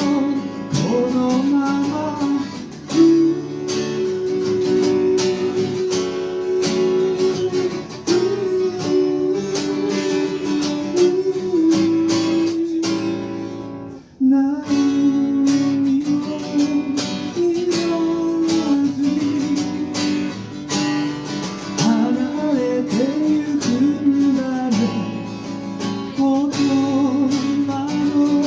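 Acoustic guitar played live, strummed chords under a sustained melody line, with a brief drop in level about halfway through.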